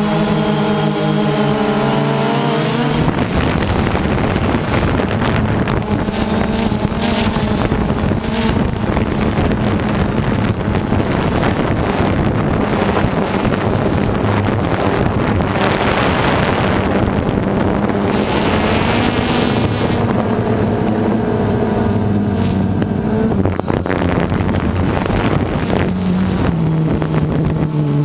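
DJI Phantom 2 quadcopter's motors and propellers humming steadily, picked up by the camera mounted on the drone. From about three seconds in, wind rushing over the microphone covers much of the hum until near the end.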